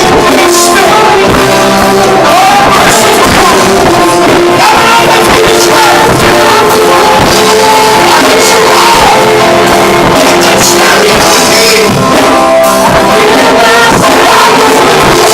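Loud worship music, a band with singing voices over a steady beat, in a large hall.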